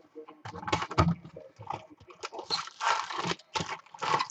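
A cardboard Bowman Chrome trading-card box being opened by hand: the flap is pulled back and the packs inside are handled, in a string of irregular rustles, scrapes and crinkles.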